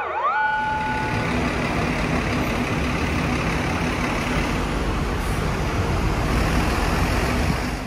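A siren dips and rises in pitch and fades out about a second in. After that comes a steady rumble of an ambulance's engine and road noise as it drives close past.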